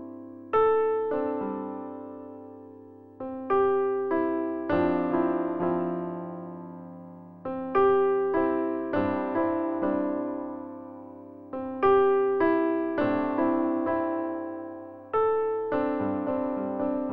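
Background keyboard music: a melody of struck notes, each ringing and fading away.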